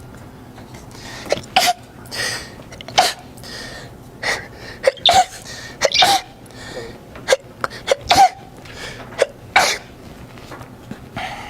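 A long run of loud, obnoxious human sneezes, more than a dozen, coming about once a second and sometimes in quick pairs.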